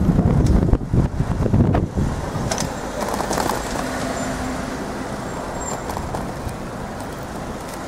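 Bicycle handlebar-mounted camera rattling and clunking over the road surface as the bike rides along, with street and traffic noise behind it. The knocking is heaviest in the first two seconds, then settles into a steadier rumble that slowly gets quieter.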